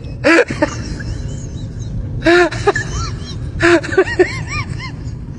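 An animal giving short, high-pitched cries in three bursts, each a harsh note followed by a few squeals that rise and fall in pitch, over a steady low rumble.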